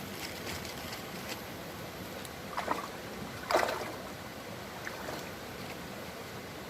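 Steady flow of a small river, with two short water splashes about a second apart near the middle, the second louder.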